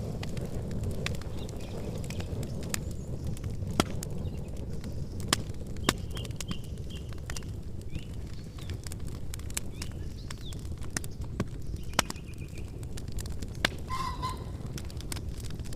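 Wood campfire crackling, with sharp snaps and pops every second or so over a steady low rumble of the flames. A few short bird chirps sound faintly behind it, with one clearer call near the end.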